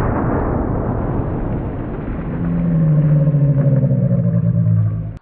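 Slowed-down replay of a Smith & Wesson 500 Magnum revolver shot into water jugs: one long, drawn-out low rumble. A deep, stretched-out shout joins about two seconds in, and the sound cuts off suddenly at the end.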